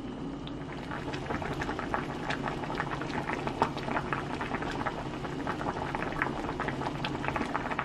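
Doenjang-jjigae (Korean soybean-paste stew) boiling in a pot, a steady stream of small bubbles popping at the surface.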